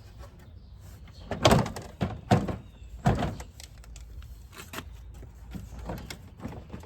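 Plastic front bumper cover of a Honda Accord being lined up and pushed onto the car: four loud knocks and clatters of plastic against the body in the first half, then lighter knocks and taps as it is worked into place.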